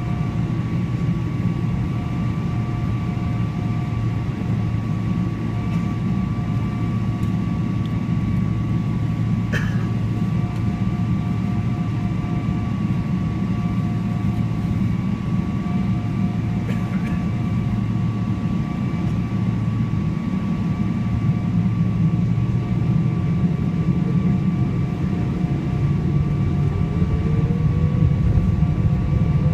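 Cabin noise inside a Boeing 777-300ER taxiing, its GE90 engines giving a steady low rumble with a faint high whine. A tone glides upward about three seconds before the end.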